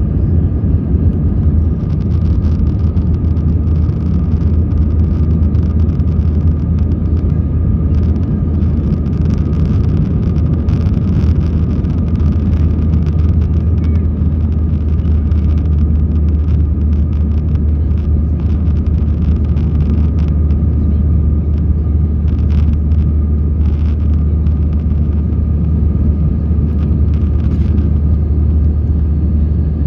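Airbus A320 airliner's jet engines heard from inside the passenger cabin: a loud, steady low rumble with a faint, steady whine above it.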